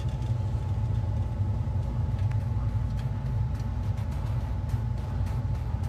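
Engine of heavy site machinery running steadily: a constant low rumble with a faint steady whine above it and a few light clicks.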